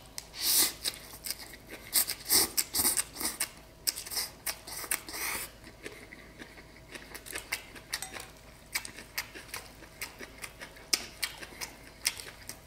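Close-miked chewing of a mouthful of rice vermicelli, herbs and grilled beef short rib: a fast run of wet, smacking mouth clicks, densest and loudest over the first five seconds, then sparser and quieter.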